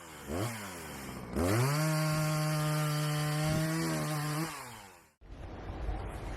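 Two-stroke chainsaw revving: a short blip of the throttle, then held high at full throttle for about three seconds before winding down. It cuts off abruptly, and a low rumbling noise follows near the end.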